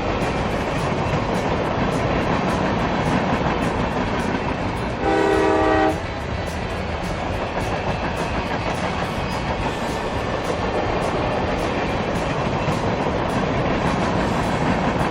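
Steady rumbling noise throughout, with one horn-like blast of about a second, a little after five seconds in.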